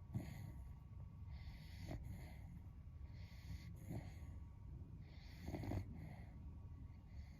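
Beagle snoring in its sleep with a human-like snore, one breath about every two seconds.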